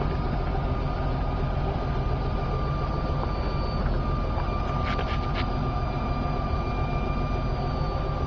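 Bucket truck running with its hydraulic boom being raised and extended from the pedestal controls: a steady engine drone under a thin steady whine that grows stronger about halfway through, with a few clicks about five seconds in.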